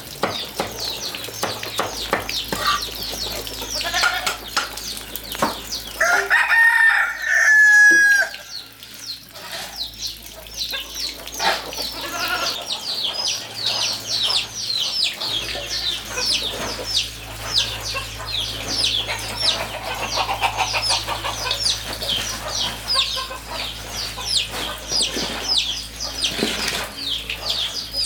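Chickens: a rooster crows once, loudly, about six seconds in. Dense, fast, high peeping runs through the second half.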